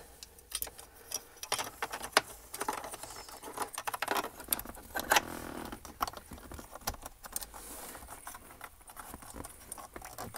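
Irregular light clicks and rattles of plastic parts and cable connectors being handled as a USB hub adapter plate and its cables are fed into a car's center-console cubby.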